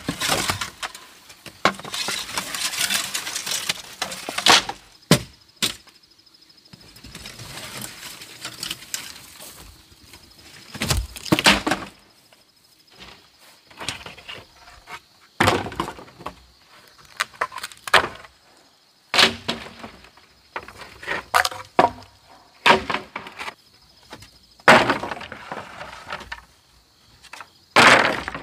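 Hand harvesting in a garden: irregular sharp cracks, snaps and knocks of woody plant stems being broken and chopped, with stretches of rustling in between.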